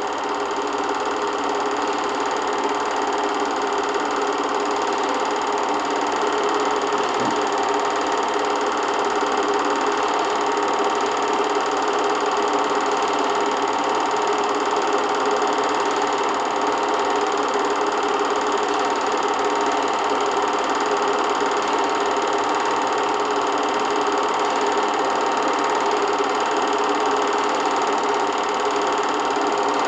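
8mm film projector running steadily in a small room, its motor and film transport making an even mechanical noise.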